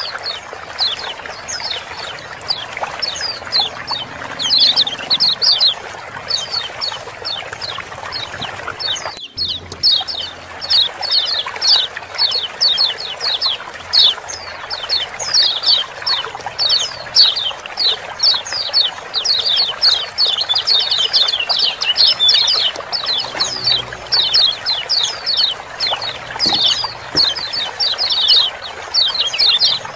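Kecial kuning (yellow white-eyes) giving fast, busy ciak-ciak chatter: a dense run of quick, downward-slurred chirps over a steady trickle of running water. The sound drops out very briefly a little after nine seconds.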